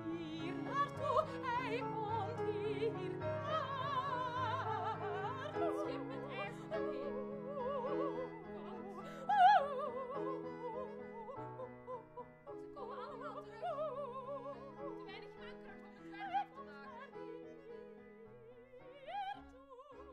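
Operatic female singing with wide vibrato over sustained piano and accordion accompaniment, gradually getting quieter towards the end.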